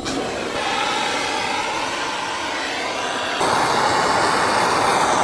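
Handheld butane gas torch burning with a steady hiss as its flame heats a blackened kettle to hurry it to the boil; the hiss gets louder about three and a half seconds in.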